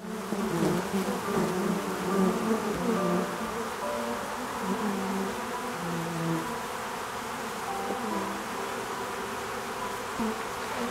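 A crowd of honeybees buzzing: a dense hum of many overlapping wingbeat tones that shift in pitch.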